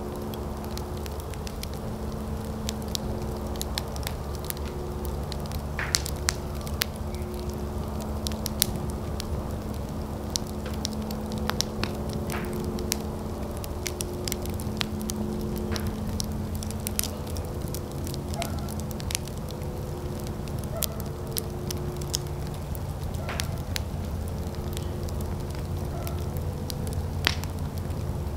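Fire burning outdoors, with frequent irregular sharp crackles and pops over a steady low rush.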